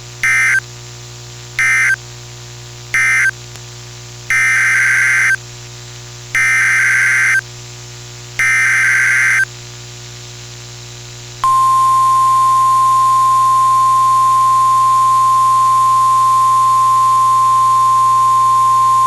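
NOAA Weather Radio Emergency Alert System signals heard over the radio. First come three short SAME digital data bursts, the end-of-message code closing the previous warning. Then three SAME header bursts of about a second each open the next Winter Storm Warning, and about 11 seconds in the steady 1050 Hz weather radio alert tone starts and holds, over a low hum and hiss.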